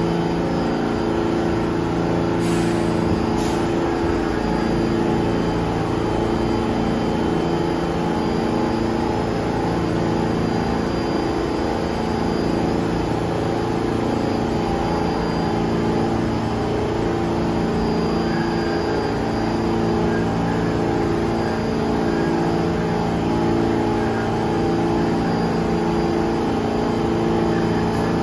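New York City subway train running, a steady drone with several humming tones that waver slightly. Two brief clicks come about two and a half and three and a half seconds in.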